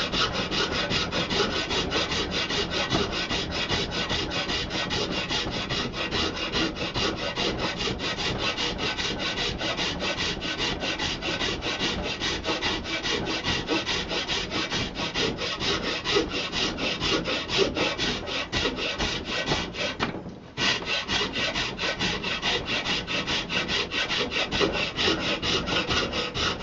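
A hand file rasping back and forth across a buffalo horn walking-stick handle held in a vise, taking horn away to close a gap in the fit. The filing is continuous apart from a brief break about twenty seconds in.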